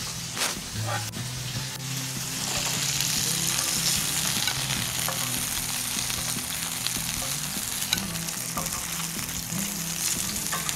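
Food sizzling and frying in a hot pan, a steady crackling hiss, with a few light knocks of a utensil against the pan.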